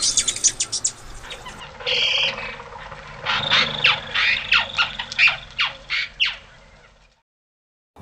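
Hummingbird calling: quick runs of high, sharp chip notes with a short squeaky buzz about two seconds in, fading out near the end.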